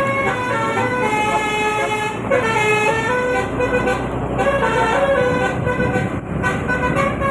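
Telolet horn on a truck playing a melody: a cluster of air-horn tones sounding together and stepping from note to note about every half second, with one swooping dip and rise in pitch about two and a half seconds in.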